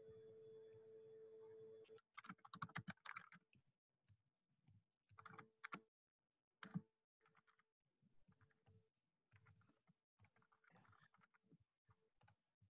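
Faint typing on a computer keyboard in a few short bursts, heard through a video-call microphone. A steady hum in the first two seconds cuts out as the typing begins.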